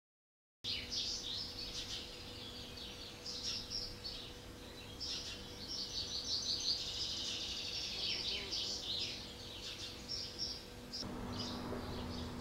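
Small songbirds chirping and twittering rapidly and continuously in the background, with a faint steady low hum underneath. Near the end a louder low buzz comes in.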